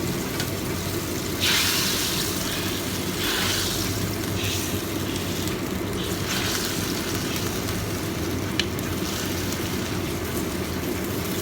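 Water being poured into a hot pan of pigeon braising in sauce, hissing in several short bursts, the strongest about a second and a half in, over a steady low hum. A single sharp click comes near the end.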